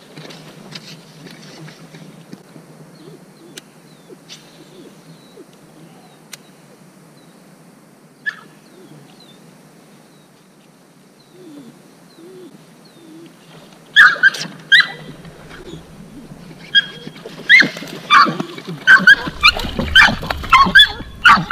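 A small dog yipping and whining excitedly while a hooked fish is played on the rod. The short, high-pitched cries start about two-thirds of the way in and come faster and louder toward the end.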